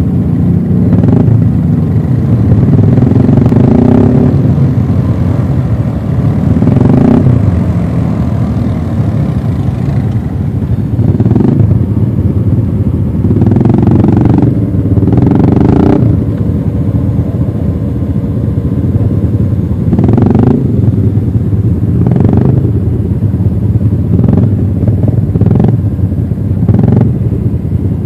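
ATV engine running close by, revving up and easing off again every few seconds.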